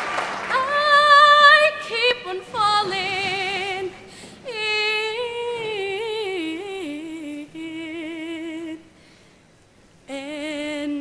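A female soloist singing slow held notes with a wide vibrato, with no accompaniment audible. The last of the applause fades out at the start, and the voice breaks off for about a second near the end before the next phrase.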